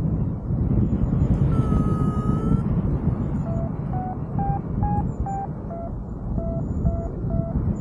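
Wind rushing over the microphone in flight, with a paragliding variometer giving a string of short beeps, about two a second, that step up in pitch and back down, its climb tone signalling lift. A single longer, higher tone sounds about two seconds in.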